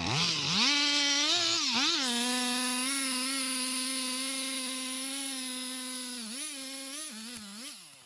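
Two-stroke chainsaw revving up to full throttle and running high and steady while cutting into a tree trunk. Its pitch dips briefly a few times, then it drops away near the end.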